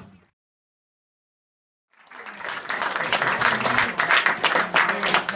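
Audience applauding with many hands clapping. It comes in about two seconds in, after a short stretch of dead silence.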